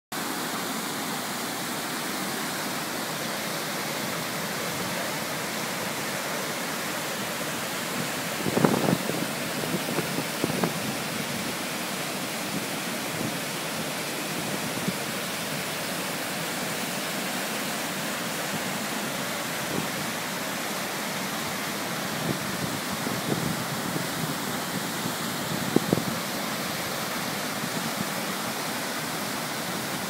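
Steady rushing of high brown river water pouring over a weir and churning into white water below. A few brief low thumps come about a third of the way in and again near the end.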